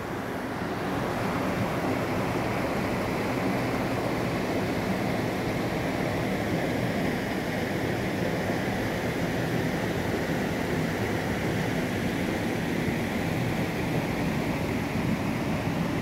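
Shallow stream water rushing and splashing over rocks, a steady unbroken rush.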